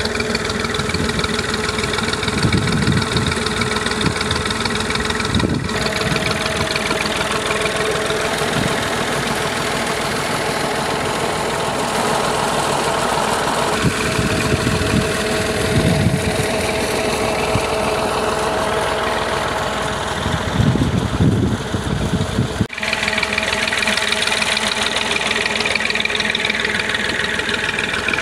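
Massey Ferguson 240 tractor's three-cylinder diesel engine running steadily while it drives a water pump draining floodwater from a field.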